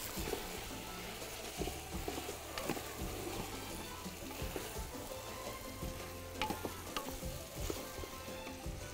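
Chicken and tomato paste frying in a large metal pot while a wooden spoon stirs them, with a steady sizzle and the spoon knocking against the pot now and then.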